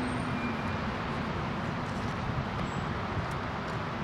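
Steady hum of distant city road traffic.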